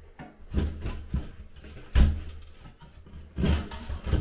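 Sheet-metal bathroom exhaust fan housing being worked out of a drywall ceiling opening: a series of knocks and scrapes, metal against drywall, the loudest about two seconds in.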